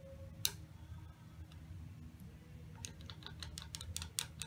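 Tip of a magnetic screwdriver tapping the glass face of a magnetic flow meter's display, keying the NO button to step a digit up: one sharp click about half a second in, then a quick run of light clicks, about five or six a second, from about three seconds in.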